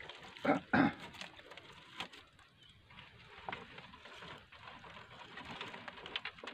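Dry brushwood twigs rustling and crackling as they are pulled out of a rusty metal drum, with two louder crackles about half a second in and scattered snaps after.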